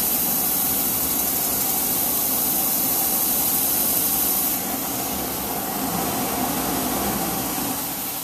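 Downdraft table's extraction blower, moving about 1800 CFM, running with a steady rushing noise, joined by a brighter hiss from the abrasive belt polisher working against the shaft that stops about four and a half seconds in.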